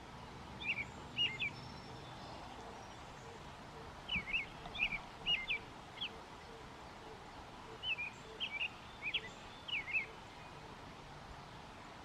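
American robin singing: three short runs of quick high chirping notes, a few seconds apart, over a steady low background hiss.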